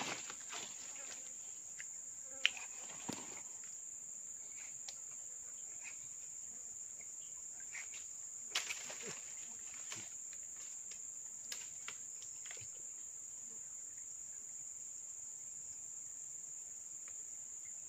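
Steady high-pitched buzzing of insects, with a few short clicks and rustles of leaf litter and fishing line being handled.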